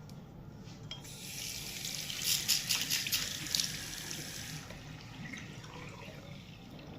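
Tap water running into a sink with splashing, starting about a second in and stopping after about three and a half seconds.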